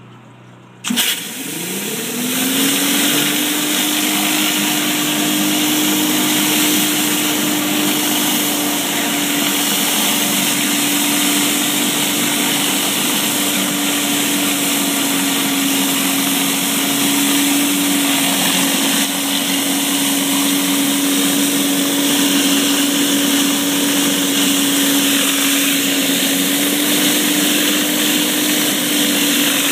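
Pressure washer starting up about a second in, its pitch rising for a second or so and then holding steady, with a dense hiss of high-pressure water as it runs a surface cleaner over concrete.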